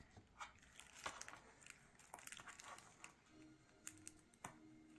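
Near silence with a few faint, scattered clicks and light rustling from objects being handled.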